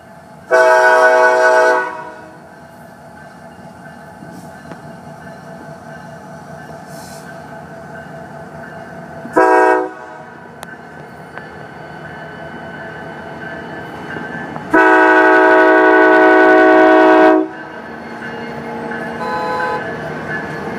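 Florida East Coast Railway diesel locomotive's air horn sounding for a grade crossing: a long blast about half a second in, a short one about nine seconds in, and a long one about fifteen seconds in. Between the blasts the slow-moving train rumbles steadily, growing louder as it nears.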